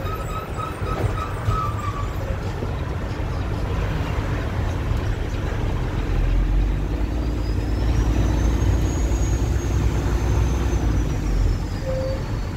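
Peterbilt truck's engine and road noise heard inside the cab while driving, a steady low rumble that grows heavier from about six seconds in. A faint high whine rises and then falls in the second half.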